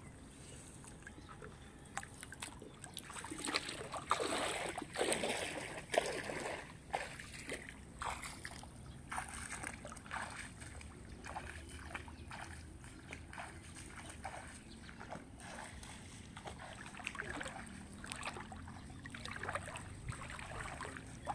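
Water splashing and sloshing in irregular bursts, busiest about four to seven seconds in, as a hand fishing net and its catch of small fish are handled in shallow water.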